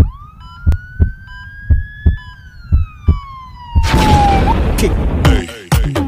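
Synthesised intro sound design: a siren-like synth tone rises for about two seconds, then slowly falls. Under it, low heartbeat-like double thumps come about once a second. At about four seconds a loud noise sweep crashes in, followed by the start of an electronic dance beat.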